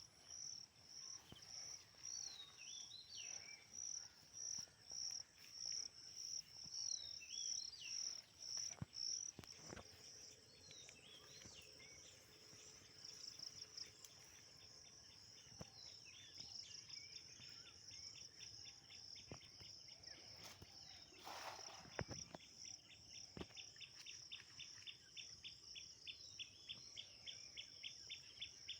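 Insects trilling in a steady, high-pitched pulsing chorus, with short falling bird chirps in the first half. A fast ticking call joins about halfway through.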